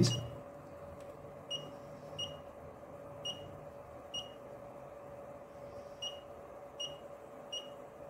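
FeelElec FY6900 function generator beeping at each step of its knob as channel 1's phase is turned: seven short high beeps at uneven intervals, the first about a second and a half in.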